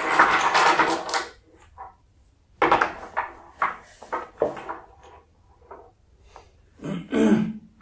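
A cord pulled out through a string of wooden beads, a dense rasping slide in the first second, then a series of short wooden knocks and clacks as the loose beads are set down on a wooden pegboard.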